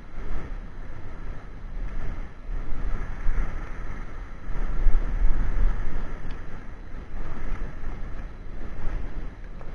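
Wind buffeting the microphone in gusts: a deep rumble that swells and fades, loudest about five seconds in.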